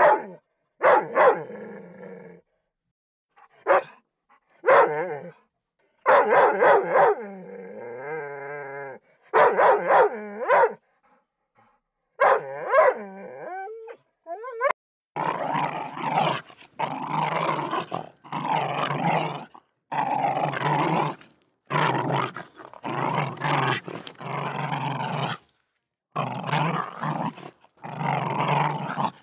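Recorded dog sounds played one after another from a dog-sounds app. The first half is short, high, pitch-gliding whimpers and whines with pauses between them. From about halfway there is a string of rough growls, each a second or so long with short gaps.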